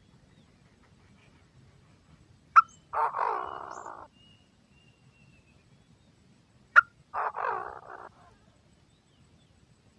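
Chinese francolin calls on a lure recording: two harsh calls about four seconds apart. Each opens with a sharp short note, followed by about a second of rasping that fades away.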